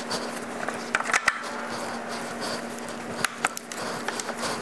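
Scattered light clicks and scrapes of metal as a motorcycle's front axle is worked into the wheel hub and speedometer housing, over a faint steady hum.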